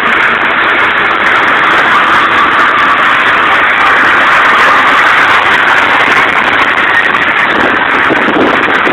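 Car engine and wind noise heard from inside a car running hard on a highway, a loud steady rush. Heavier, uneven low rumbling comes in near the end.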